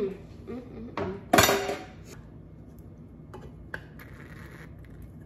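A metal spoon clinking against a stainless steel mug of tea, with one loud clatter about a second and a half in, then a few lighter clicks as the mug is handled.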